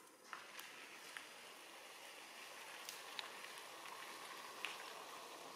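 Faint, steady outdoor hiss with a few scattered light ticks.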